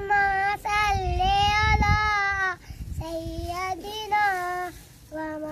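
A young boy singing unaccompanied, in several long, wavering held notes with short breaks between phrases.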